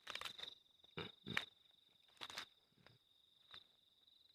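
A cricket's steady high trill, with five short crackling rustles over it, the loudest at the start and about a second in.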